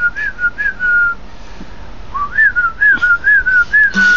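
A person whistling to get a dog's attention: two runs of short, quick up-and-down notes, about four a second, each ending on a longer held note, with a pause of about a second between them.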